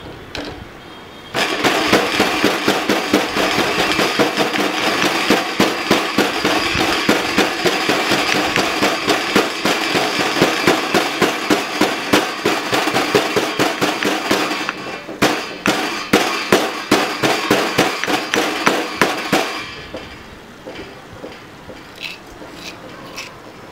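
Heavy granite pestle pounding in a stone mortar: rapid steady strikes, about three a second, with a short break partway through. Near the end the pounding stops and gives way to faint clinks of a metal spoon scraping inside the stone mortar.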